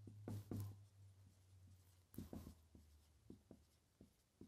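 Faint, irregular scratching strokes of a dry-erase marker writing on a whiteboard. A low hum sits under the first couple of seconds and then fades out.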